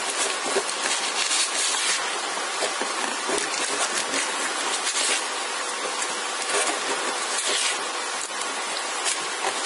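Steady crackling rustle with many small clicks from floral tape being wound around the wire stem of a beaded lily branch.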